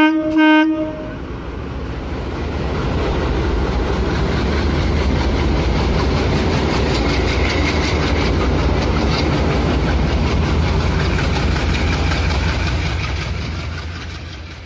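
A train horn sounds briefly and stops about a second in. Then a train's rumble and the clickety-clack of its wheels build up, run steadily, and fade away near the end.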